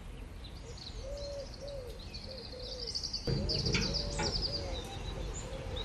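A dove cooing in a steady run of soft, arched notes, about two a second, with small birds twittering higher up, busiest between two and four seconds in. A low background rumble comes up about three seconds in.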